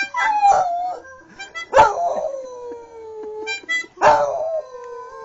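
Dog howling: three long howls, each starting sharply and sliding down in pitch.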